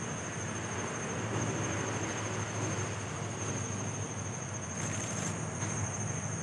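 Insects trilling on one steady high-pitched note over a low steady rumble, with a brief hiss about five seconds in.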